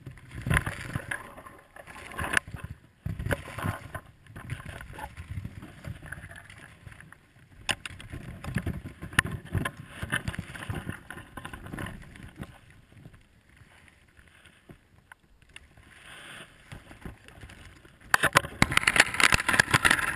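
Brush and briar canes scraping and crackling against a hunter's clothing and the camera as he pushes through a thicket, with footsteps in dry leaves. The scraping comes in irregular bursts and is loudest near the end.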